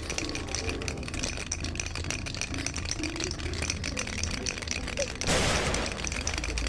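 Film background score: a fast, rattling percussion beat, with a sudden burst of noise about five seconds in.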